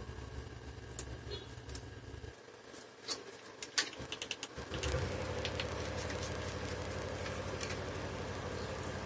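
Small screwdriver backing the screws out of the metal mounting bracket on a 2.5-inch Toshiba laptop hard drive: a few faint metallic clicks and ticks about three and four seconds in, over a low steady hum.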